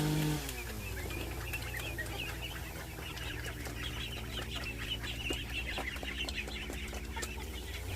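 Chickens clucking over a small engine idling low. The engine drops from a high run to idle just after the start and revs back up right at the end.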